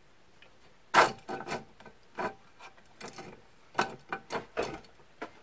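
Hex key clicking and scraping against the metal spindle mount and its screws while the mount's bottom screws are worked by feel. The result is a run of irregular sharp clicks and taps, some with a brief metallic ring, the loudest about a second in.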